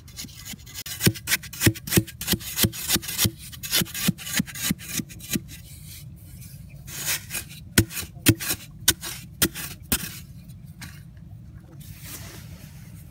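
A short-handled digging tool striking into hard, dry soil in a quick run of chops, about two a second, then a few more strikes after a pause. Near the end, hands scrape and scoop loose soil.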